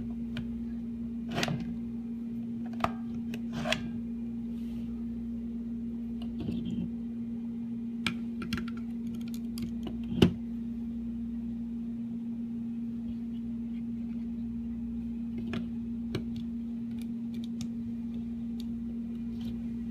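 Scattered clicks and light knocks of batteries being taken off a charger and fitted into an IPV4 vape box mod, with one sharper knock about halfway through, over a steady low hum.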